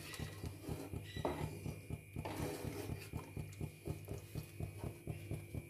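Flat wooden spatula stirring milk in an aluminium kadhai, knocking and scraping against the pan in a quick, regular rhythm of soft taps over a low steady hum.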